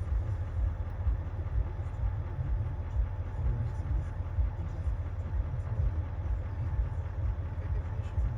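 A vehicle driving, giving a steady low rumble of engine and road noise.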